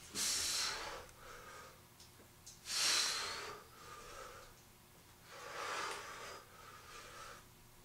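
A man's forceful breathing while doing underhand-grip pull-ups: three loud exhalations about two and a half seconds apart, one per rep, with fainter breaths between.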